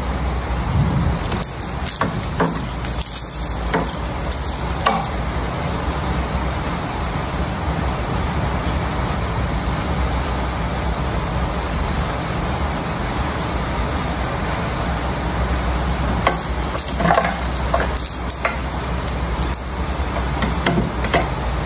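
Small bell jingling in two flurries of light tinkles, about a second in and again near the end, as a cat plays with a jingle-ball toy on a string. A steady background hiss runs underneath.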